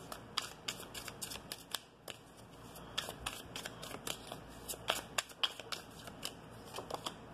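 A deck of message cards being shuffled by hand: an irregular run of quick card flicks and slaps.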